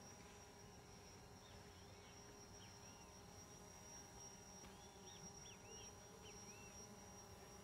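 Near silence: faint outdoor ambience with a steady high-pitched whine and scattered short chirps.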